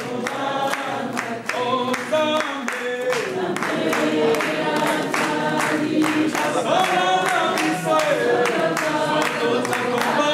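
A group of people singing together in a call of many voices, with steady hand-clapping about twice a second keeping the beat.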